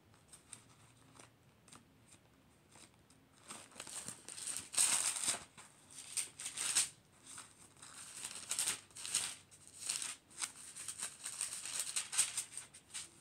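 Thin pages of a Bible being leafed through by hand: an irregular run of paper rustles and flicks that starts about three and a half seconds in, after a few faint ticks.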